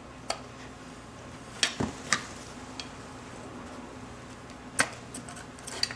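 Sharp metal taps and clicks at irregular intervals, about half a dozen: a punch being driven against the float pivot pin to free the float of a Weber 32/36 DGAV carburetor. A low steady hum sits underneath.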